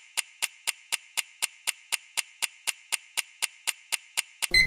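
Countdown-timer sound effect: a clock ticking evenly at about four ticks a second, ending in a short ringing chime near the end as the time runs out.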